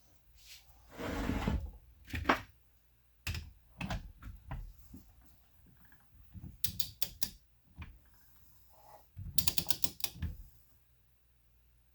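Metal engine parts being handled on the bench: a short scrape, then several knocks, and two bursts of rapid metallic clicking, one in the middle and a longer one near the end.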